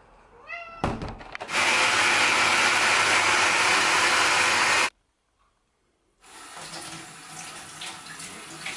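Personal bullet-style blender running for about three seconds while blending a smoothie, a loud steady whir that cuts off abruptly.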